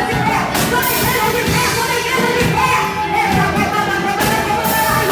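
Church worship band playing a praise song with singing, drums and cymbals keeping the beat.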